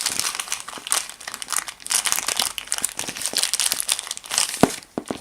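Packaging crinkling and rustling as a knife is unwrapped by hand, in dense irregular crackles, with one sharper click a little after four and a half seconds in.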